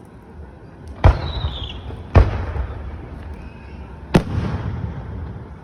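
Three aerial firework shells bursting: a sharp boom about a second in, another a second later, and a third about two seconds after that, each trailed by a rolling echo that fades away.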